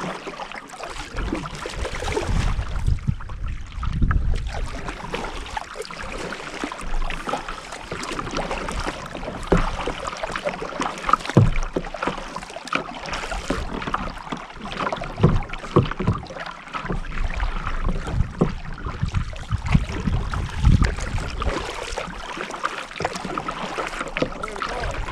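Kayak paddling on a river: irregular splashes and drips of paddle blades in the water, with a low rumble of wind on the microphone that comes and goes.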